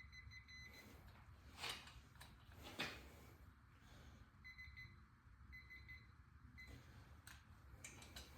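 Faint electronic beeping in runs of rapid short pips, starting and stopping several times. About two and three seconds in come two brief, louder rasping sounds.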